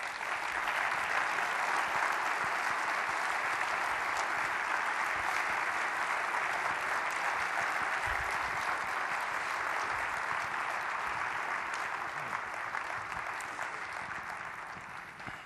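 An audience applauding, a steady dense clapping that gradually fades over the last few seconds.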